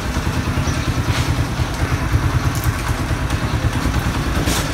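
Motorcycle engine running steadily, with a fast, even low throb.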